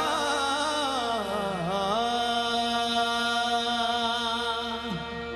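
Qawwali singing without drums: a slow, wordless vocal line that wavers and sinks about a second and a half in, then held notes over a steady harmonium drone.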